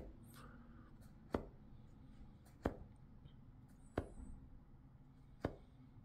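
Five light, sharp taps about a second and a half apart, fingertips tapping on the desk, over quiet room tone.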